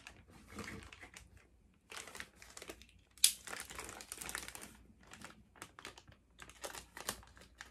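Clear plastic packaging bag crinkling in short, irregular bursts as it is handled and cut open with a box cutter, with one sharp click a little over three seconds in.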